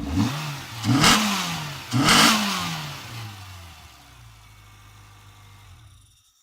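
Car engine running without its air filter or airbox, revved in three quick blips with a loud rush of open intake noise on the last two, then settling back to idle.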